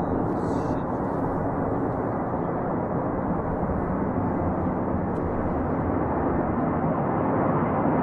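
B-52 bomber's eight jet engines running at high power as the aircraft rolls down the runway, a steady dense jet noise that grows slightly louder near the end as it draws nearer.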